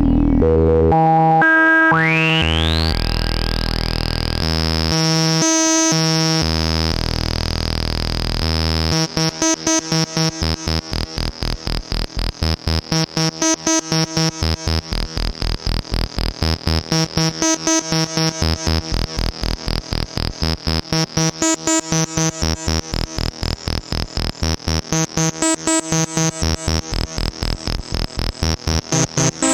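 PAiA Fatman analog synthesizer playing held bass notes, with a resonant filter sweeping upward about two seconds in. From about nine seconds in the sound turns into a fast, even pulsing pattern whose upper tone slowly wavers.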